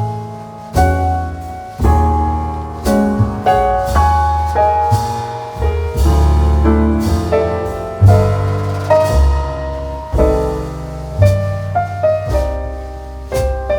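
Background music led by piano, with a low bass line under notes that change about every second.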